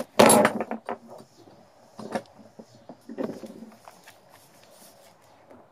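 Knocks and clatter of a cordless drill and wooden workpieces being handled at a workbench. There is a loud knock just after the start, then scattered lighter taps and knocks that fade out; the drill is not running.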